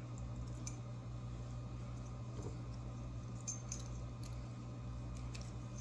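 Faint, scattered metallic clicks and taps from the small parts of a disassembled American 1100 padlock being handled while its pins are removed, over a steady low hum.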